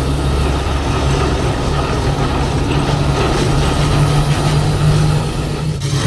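Godzilla sound effect from Godzilla Minus One's mutated Godzilla: a loud, steady, deep rough rumble, dipping briefly near the end.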